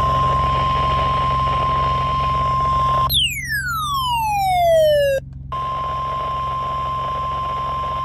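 NOAA Weather Radio 1050 Hz warning alarm tone, a steady single tone, heard through a Midland handheld weather radio's speaker. About three seconds in it breaks off for a falling whistle with overtones lasting about two seconds; after a short gap the steady tone returns and stops at the end.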